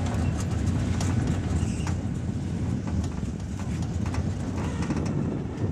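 Scattered light knocks and clicks as a person climbs out over a sprint car's frame tubing, heard over a steady low rumble.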